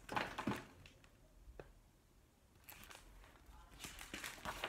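Soft rustling of paper as a page of a picture book is turned by hand, a few faint swishes with a small tap in the middle.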